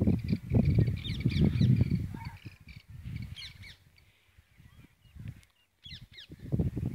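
Hands working loose soil into a planting pit around a white sandalwood sapling: muffled rustling and soft thumps, busiest in the first few seconds and again near the end. Birds chirp and call in the background.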